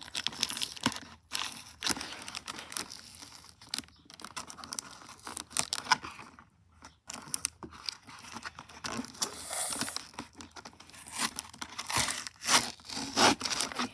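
Packing tape being peeled and torn off a cardboard toy box: irregular ripping and crinkling, with a brief pause about halfway through.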